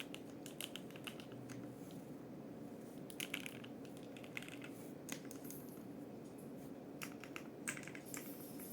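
Monsgeek M1 mechanical keyboard with Gateron Oil King linear switches on a polycarbonate plate, typed on in short bursts of keystrokes with pauses between them. Clusters of clicks come about a second in, around three seconds, around five seconds, and again near the end.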